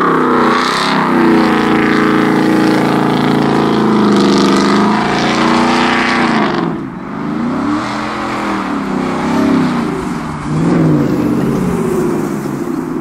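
Supercharged 5.0-litre V8 of a Ford Raptor accelerating hard as the truck drives off. Loud for the first six seconds or so, then quieter, its pitch rising and falling several times as the truck pulls away into the distance.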